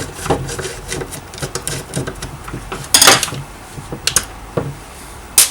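Plastic and metal parts of a chainsaw's recoil starter clicking and knocking as it is taken apart by hand to get at its recoil spring, with a louder short clatter about three seconds in and a sharp knock near the end.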